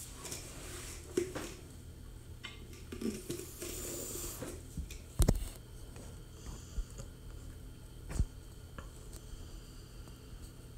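Quiet room with a steady low hum and a few faint clicks and knocks. The sharpest knock comes about five seconds in and another near eight seconds.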